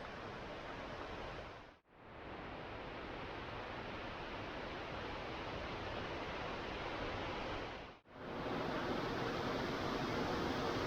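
Steady rush of falling water from a waterfall. It drops out briefly twice where clips are joined and is louder after the second break.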